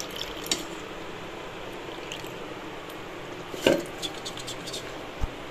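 Wet mint leaves and green chillies being handled and pushed from a steel bowl into a stainless-steel mixer-grinder jar: dripping, squishing and light clinks of steel, with one louder clatter about three and a half seconds in and a short low thump near the end.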